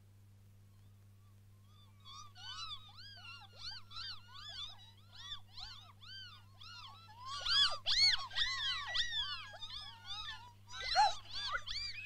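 Cartoon baby birds cheeping: a busy chorus of short, high peeps, each rising and falling in pitch. It starts about two seconds in and grows denser and louder around eight seconds and again near the end.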